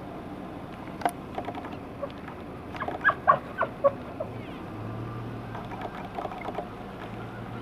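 Elk in the rut calling: a quick run of short, sharp calls about three seconds in, then fainter calls, with a low steady hum from about halfway.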